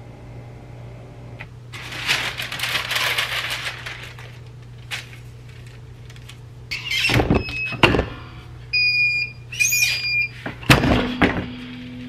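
Heat press being worked: rustling of the shirt and the plastic vinyl carrier sheet, then loud clunks and a squeal from the press, a few short electronic beeps, and another heavy clunk, over a low steady hum.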